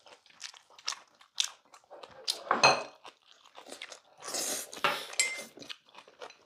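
Close-miked eating of bibimbap: short crunching and chewing clicks, with spoons and chopsticks scraping and clinking against stainless steel bowls. A sharp metal clink rings briefly about two and a half seconds in, and another short ring comes a little after five seconds.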